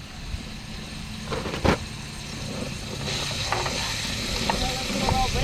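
Meat frying in a pan, sizzling louder from about three seconds in, with a sharp knock before that and a few light clicks.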